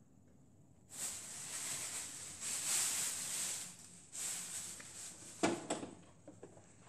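Shuffling, rustling noise in several stretches, starting about a second in, as a tray of glass cups is carried along. About five and a half seconds in there is one sharp knock, followed by a few faint ones.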